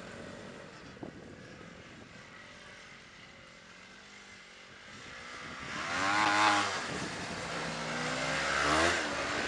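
A Yamaha Phazer MTX snowmobile's four-stroke twin engine running as the sled rides across snow. It fades as it moves off, then grows loud twice as the sled passes close, its pitch sweeping up and down with each pass.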